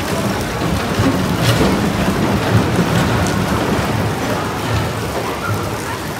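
Big Dipper wooden roller coaster train rolling around the curved station track, a loud, steady rumble and rattle of its wheels with a few sharp clacks, easing off slightly near the end as the last car goes into the tunnel.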